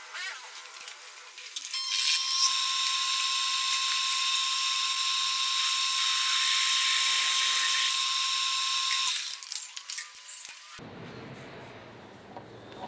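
Metal lathe running with a twist drill boring through the centre of a spinning metal disc held in the chuck. It is a steady, high whine that starts about two seconds in and stops about nine seconds in, followed by quieter handling sounds.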